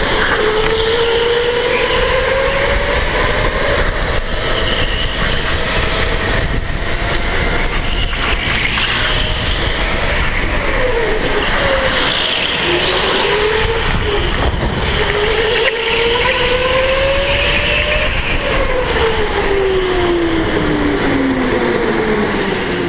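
Electric go-kart motor whining, its pitch climbing on the straights and dropping into the turns, over steady noise from the kart on the track. Near the end the whine falls steadily as the kart slows.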